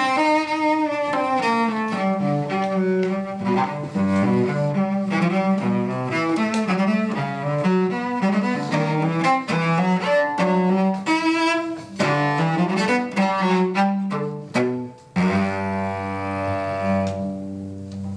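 Solo cello bowed through a quick passage of changing notes, then about fifteen seconds in settling on a long held low chord that fades out.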